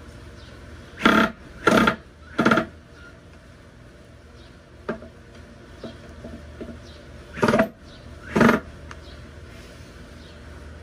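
Red cordless drill run in five short bursts, three in quick succession and then two more, as it bores down into a wooden drawer box, with a few light knocks in between.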